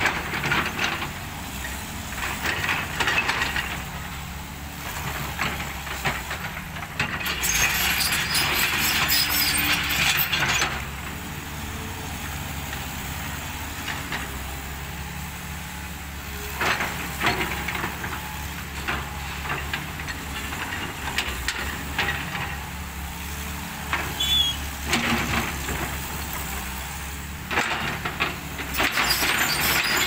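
CAT tracked excavator's diesel engine running steadily while its bucket scrapes and pushes loose gravel, with loud stretches of crunching, rattling stone every few seconds.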